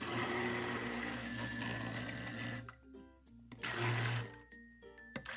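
Handheld stick (immersion) blender running with its head submerged in melted soapmaking oils in a crock pot, in pulses: on for about two and a half seconds, off, a short burst around four seconds in, then starting again right at the end.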